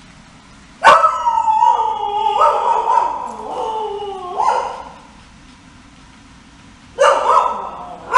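Dogs barking and howling: a sudden loud outburst about a second in turns into long, slowly falling cries that overlap for some four seconds, and a second shorter outburst comes near the end.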